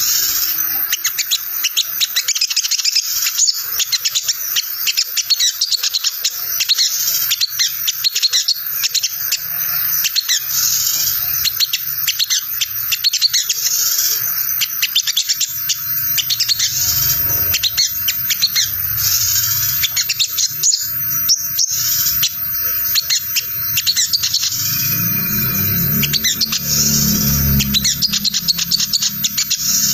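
Olive-backed sunbird (sogon) giving a fast, continuous high twittering chatter, the 'ngriwik' call that sounds like a tangled cassette and is played as a lure to get other sunbirds to answer. A low hum comes in underneath a few seconds before the end.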